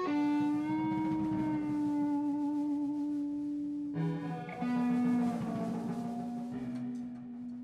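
Improvised jam music led by an electric guitar through effects pedals, holding two long sustained notes. The first note wavers with vibrato and gives way to a new note about four seconds in.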